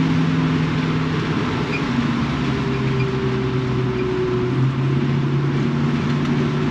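Ford 289 V8 of a 1965 Mustang fastback running steadily on the road, heard from inside the car over tyre and road noise. The engine's hum drops slightly in pitch about two seconds in.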